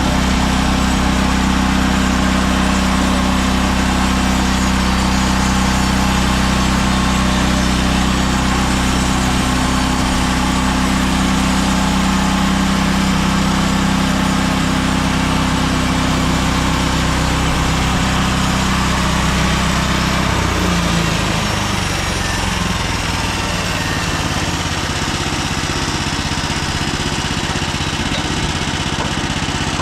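Gas engine of a MechMaxx SM32 bandsaw mill running steadily at high speed, then about two-thirds of the way through its pitch drops and it settles to a lower idle.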